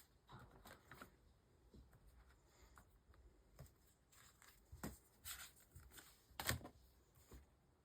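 Faint rustling and light tapping of paper planner sheets being handled, with a few short clicks; the sharpest click comes about six and a half seconds in.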